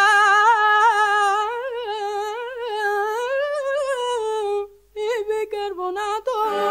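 A high male voice sings a long, unaccompanied melismatic 'ah' with heavy vibrato, a flamenco-style cante flourish in a Spanish copla. The voice drops out briefly just before five seconds in, then sings a few short notes before the band comes back in at the very end.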